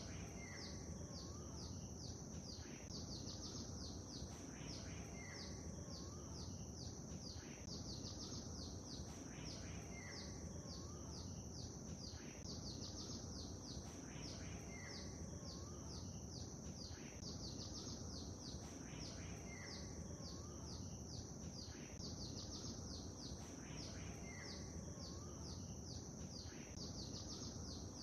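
Faint lake ambience: a steady low rush of water with birds chirping over it. A fast, high chirping runs throughout, and short bird calls recur about every five seconds.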